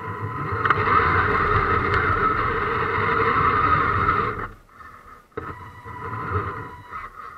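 Electric motor and gear drivetrain of a scale RC crawler truck, heard from a camera on the truck, whining steadily while it drives over rough ground. It cuts out about four and a half seconds in and picks up again about a second later.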